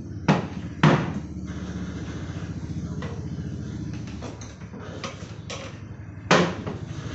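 Three sharp knocks of hard objects being handled and set down, two close together near the start and one near the end, over a steady low hum like an idling engine.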